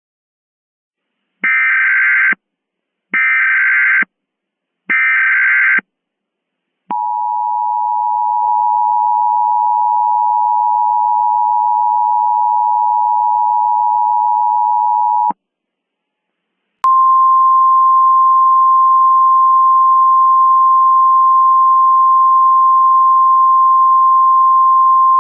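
Emergency Alert System tones. First come three short bursts of the screeching SAME data header, then the two-tone attention signal held steady for about eight seconds. After a short pause a single steady tone starts, the weather-radio alert tone, and it runs on.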